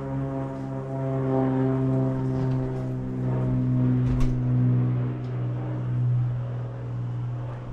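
A loud, steady low-pitched drone with many overtones, its pitch drifting slightly. A single sharp click comes about four seconds in.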